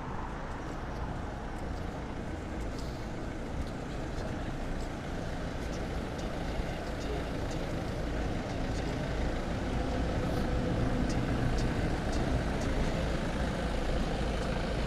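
Slow-moving queue of vans, cars and a box lorry in traffic: a steady mix of engine rumble and road noise that grows a little louder toward the end.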